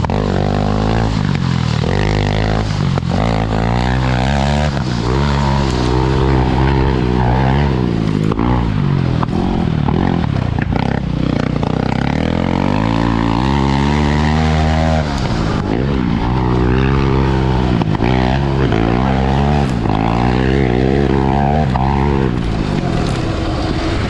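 Half-tracked sport quad's engine revving up and falling back over and over as it is ridden hard around a dirt track, with a longer drop in revs about midway before it climbs again.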